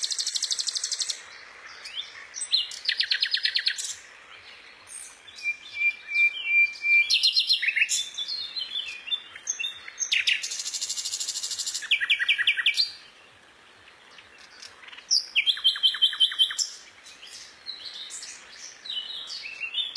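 A captive songbird singing a long, varied song of rapid high trills, twittering runs and one short steady whistle, broken by brief pauses.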